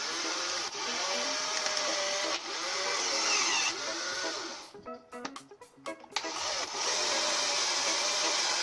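Cordless drill/driver running off a mains power supply in place of its battery, drilling into a wooden block, its motor whine wavering in pitch as the bit bites. About five seconds in it stops and gives a few short trigger bursts, then runs steadily again.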